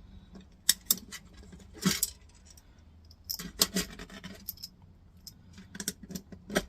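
Small metal and plastic scrap parts clicking and clattering as they are handled, with a short scrape about two seconds in and a run of clicks near the middle.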